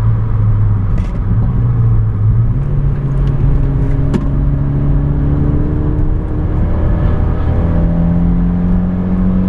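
Renault Mégane 225's turbocharged four-cylinder engine with a Ktec aftermarket exhaust, heard from inside the cabin under load on track. Its note climbs steadily, with a step up about two and a half seconds in.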